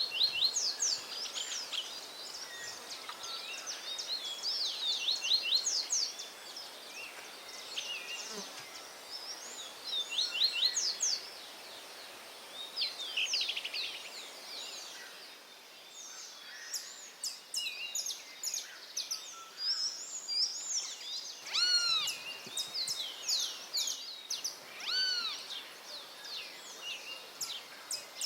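Several songbirds singing and calling: quick high chirps, trills and rapid note series, with clear arched whistled notes a little over twenty seconds in and again a few seconds later.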